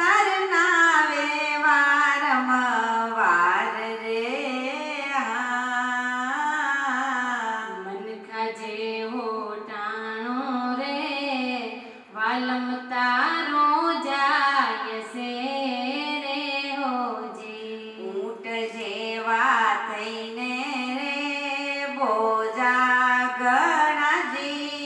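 Women singing a Gujarati devotional bhajan through microphones: one continuous melodic line of long held notes that bend up and down in pitch.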